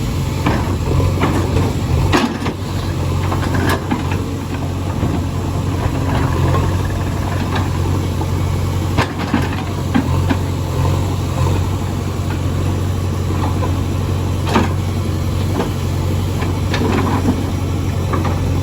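JCB 3DX backhoe loader's diesel engine running steadily, with sharp knocks and clanks breaking in a few times as it works.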